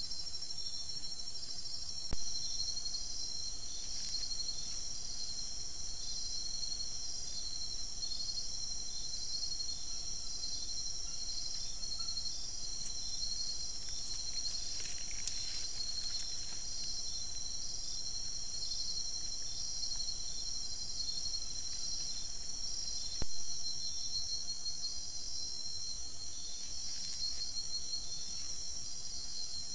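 A nighttime chorus of insects trilling steadily in several overlapping high, pulsing voices. Two brief sharp clicks stand out, about two seconds in and again about 23 seconds in.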